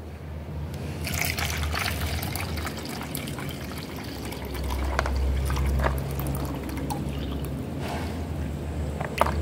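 Soaking water trickling and splashing as it is poured off a plastic tub of black sapote seeds, with a few light knocks.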